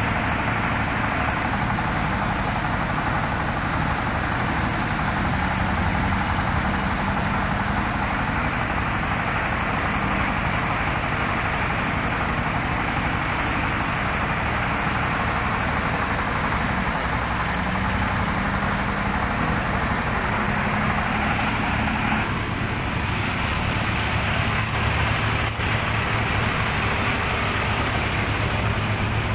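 Engine-driven rice threshing machine running steadily, a dense, even mechanical noise that shifts slightly about three quarters of the way through.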